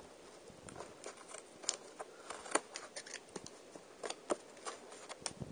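Hands working at a sealed cardboard mailing box to get it open: an irregular run of scratches, clicks and taps on the cardboard and tape.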